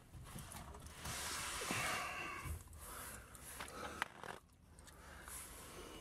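Faint rustling and scraping handling noises, uneven swells of hiss with a sharp click about four seconds in.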